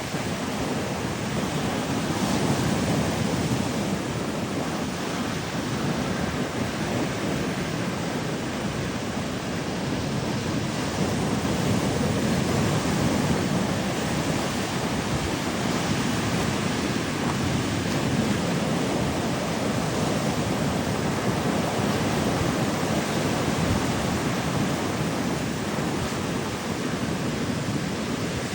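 Ocean surf washing up the beach: a steady rush that swells and eases every several seconds.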